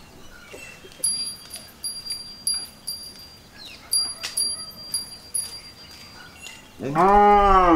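Light metal clinks with a bright ringing tone, about two a second, like steel vessels knocking together. Near the end a cow moos loudly in one long call that rises and then falls in pitch.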